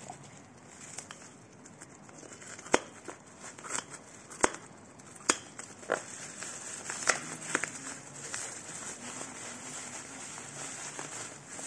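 Perfume box and its packaging being handled and opened: a low crinkling rustle broken by sharp clicks and taps, a handful of them a second or so apart through the middle.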